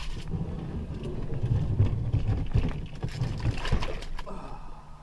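Plastic sit-on-top kayak, a Wilderness Systems Tarpon 140, being launched from a rocky bank: its hull and gear bump and scrape, with a few sharp knocks.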